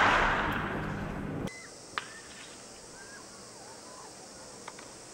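Crowd noise dying away, cut off abruptly about a second and a half in. Then quiet open-air ambience with faint bird chirps and a couple of light clicks.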